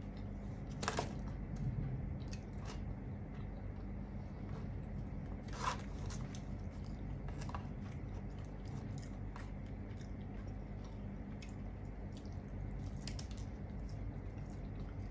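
Close-miked chewing and mouth sounds: scattered soft crunches and clicks over a steady low hum.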